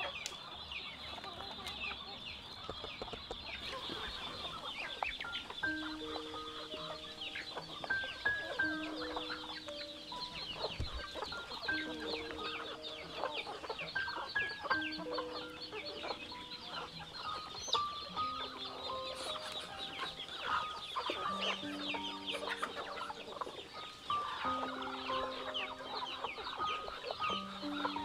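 A flock of chickens clucking and cheeping, with a constant high chirping under it. Simple background music with long held notes comes in about six seconds in.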